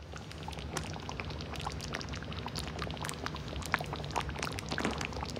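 Chicken marsala's mushroom cream sauce simmering in a cast-iron skillet on low-medium heat: steady bubbling with many small pops and crackles, over a low steady hum.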